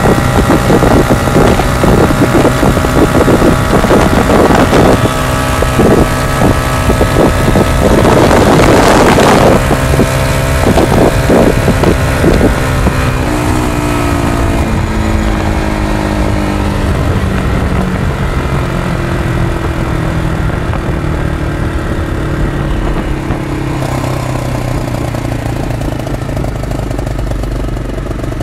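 PGO 500i's engine running flat out near top speed, with heavy wind noise. From about halfway through, its note falls steadily and gets quieter as the vehicle slows down.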